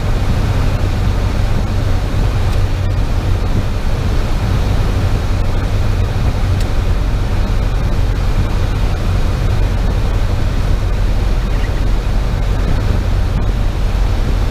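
Piper PA-28's piston engine and propeller droning steadily, heard inside the cockpit: a loud, deep, unchanging hum with a rushing haze of noise over it.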